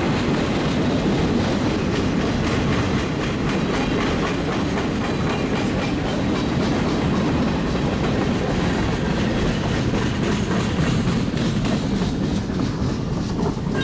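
Freight train cars (boxcars, a tank car and a covered hopper) rolling past: a steady rumble of steel wheels on rail with a running clickety-clack of wheels over rail joints.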